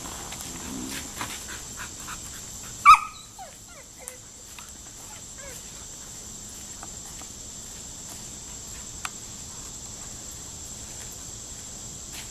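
A Labrador puppy gives one short, high yelp about three seconds in, falling in pitch. Around it are light scattered ticks of steps and a steady high hiss.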